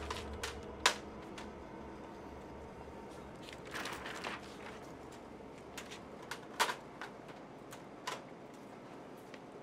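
Handling noise at a deli display counter: a few sharp clicks and knocks, the loudest about a second in, and a short rustle of a plastic sheet around four seconds in.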